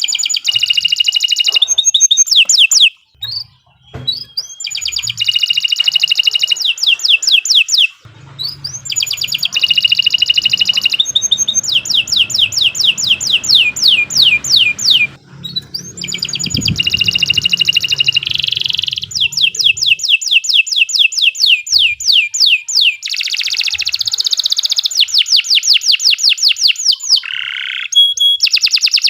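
Domestic canary singing a long song of fast trills and rapidly repeated notes, in several phrases broken by short pauses.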